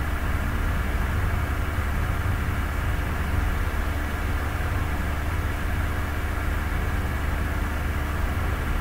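Steady low hum with a haze of hiss, unchanging throughout: constant machine-like background noise.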